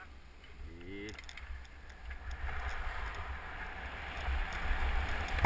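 Skis sliding over groomed snow with wind buffeting the microphone as a skier descends a giant slalom course, the hiss of the skis and wind growing louder from about two and a half seconds in as speed builds. A brief voice sounds about a second in.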